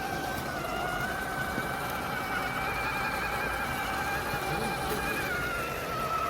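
Electric motor and geartrain of a 3D-printed RC crawler truck whining steadily, the pitch wavering slightly and dipping near the end.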